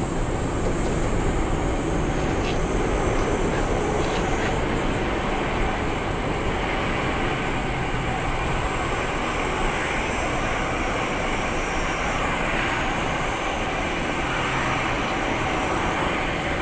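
Boeing 777-200's twin jet engines at takeoff thrust during the takeoff roll: a loud, steady jet noise that holds without a break.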